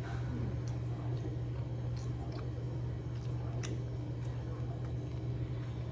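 Close-up chewing and wet mouth sounds of someone eating, with scattered soft clicks and smacks, over a steady low electrical hum.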